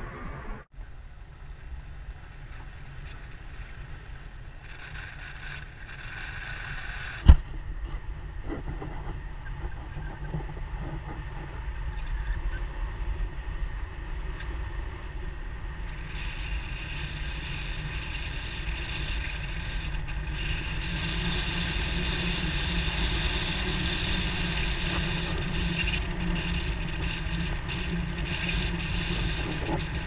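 A car driving along a rough road: a steady low rumble of engine and tyres with wind noise on the microphone, the tyre hiss growing louder about halfway through. One sharp knock about seven seconds in.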